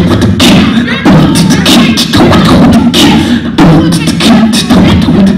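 Beatboxing into a handheld microphone over a PA: a loud, steady run of mouth-made drum sounds, about three hits a second.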